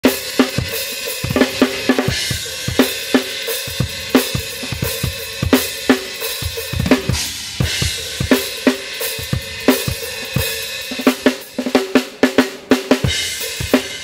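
Acoustic drum kit played in a steady groove during a sound check: kick and snare hits under a constant wash of cymbals, breaking into a faster run of hits near the end.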